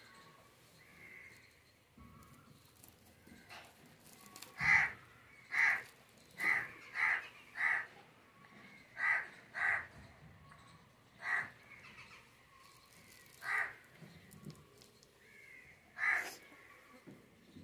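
A crow cawing: about ten short caws in irregular runs, the busiest run between about five and eight seconds in.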